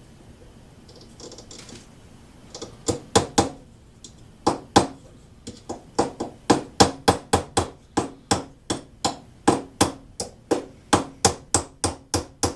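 Hammer tapping 1¾-inch nails through the side bars of a wooden Langstroth beehive frame into its top bar: a run of quick, even knocks, about three a second, starting about three seconds in.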